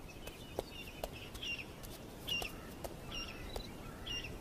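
A bird chirping: short repeated calls, about one a second, over a low background hiss, with a few soft clicks.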